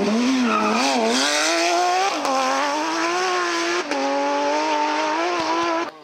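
Porsche 997 GT3 rally car's flat-six engine blipping through a corner, then accelerating hard with two quick upshifts, the pitch climbing and dropping sharply at each shift about two and four seconds in. The sound cuts off just before the end.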